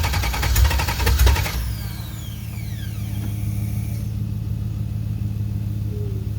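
A swapped GM LS V8 is cranked on its starter in quick, even pulses without firing; about a second and a half in the cranking stops and the starter's whine falls away as it spins down, leaving a steady low hum. It will not catch because it is not getting fuel.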